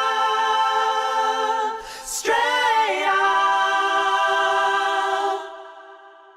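Unaccompanied choir-like singing: one long held note, then after about two seconds a second held note that fades away near the end.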